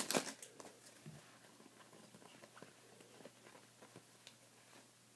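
Faint scattered ticks and soft rustles of trading cards being handled and flipped through, over quiet room tone.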